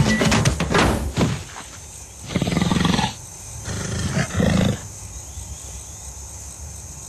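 A lion roars twice, two short roars about two and a half and four and a half seconds in, each about half a second long. Music with drums fades out in the first second.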